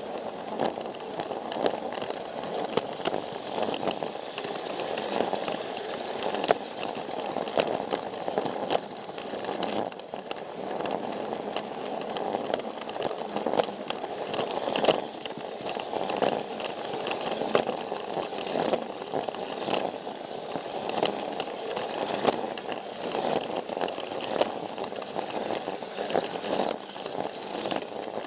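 Plarail battery-powered toy train running along plastic track, its small motor and gears whirring steadily. Frequent short sharp clicks come as the wheels cross the track joints.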